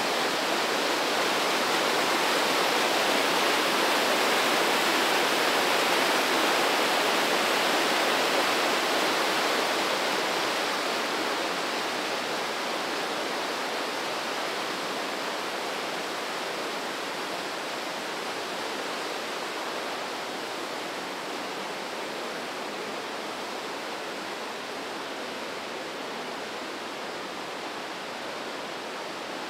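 Whitewater of the Breitach river rushing through a narrow rock gorge, a steady dense hiss that gets gradually quieter from about ten seconds in.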